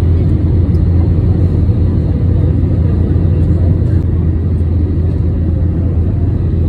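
Inside the cabin of a jet airliner on final approach: the steady, deep rumble of the turbofan engines and rushing air, unchanging throughout.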